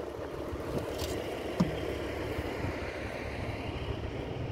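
Steady rumbling background noise, with two short clicks about one second and one and a half seconds in.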